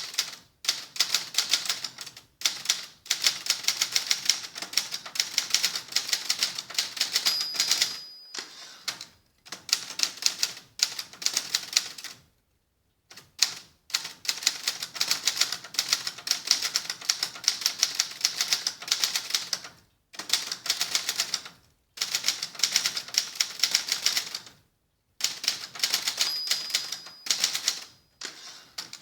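Adler Gabriele 25 manual typewriter being typed on in quick runs of key strikes, its typebars clacking against the platen with the cover off. The runs break off twice for a moment. Twice a short high ring sounds, the typewriter's margin bell.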